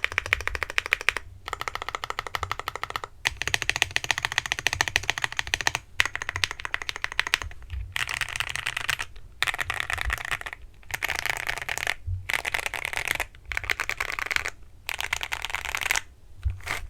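Mechanical keyboard typing test on a Monsgeek M1 with lubed Akko Jelly Black linear switches and ABS Cherry-profile keycaps. It is fast typing in bursts of dense key clicks, with short pauses between bursts. From about eight seconds in, the keystrokes run together more smoothly.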